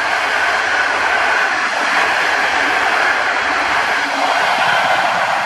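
Passenger coaches of a locomotive-hauled train rolling past close by at speed: a loud, steady rush of wheels on rail.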